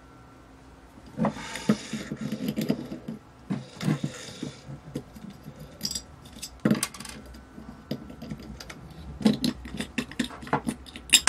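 Metal parts of a small avionics display assembly being worked apart by hand. First comes about four seconds of scraping and rubbing as the round metal cover disc is turned and worked. Then scattered sharp metallic clicks and clinks as a nut, a washer and the cover come loose.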